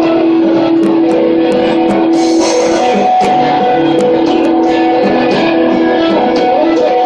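Live post-rock band playing loud: electric guitars ringing in held notes over a low note that pulses a few times a second, with occasional sharp cymbal hits.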